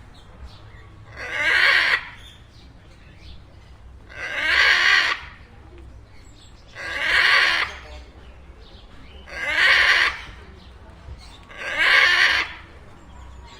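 Indian ringneck parakeet vocalising in a repeated pattern: five loud calls, each about a second long, coming roughly every two and a half seconds.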